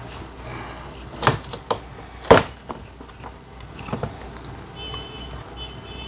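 A few sharp plastic knocks and clicks as the clear plastic spin-tub cover of a semi-automatic washing machine is handled, the loudest a little over two seconds in.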